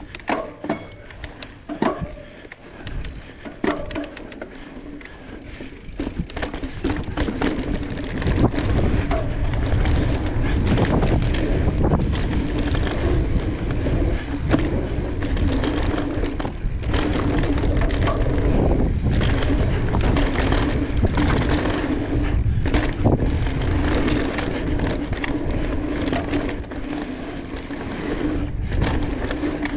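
Mountain bike riding down a dry dirt singletrack: tyres on loose dirt and rock, with sharp clicks and rattles from the bike. About six seconds in it grows louder, with wind rumbling on the microphone from then on.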